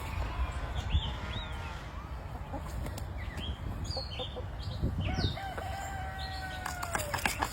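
A rooster crowing once, a long held call that drops off at the end, with small birds chirping around it.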